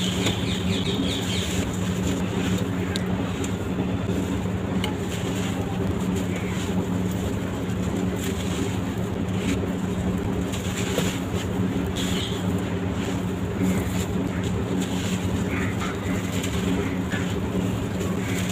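Dry sand-cement blocks being crushed and crumbling, a steady gritty crunching, with small birds chirping now and then in the background.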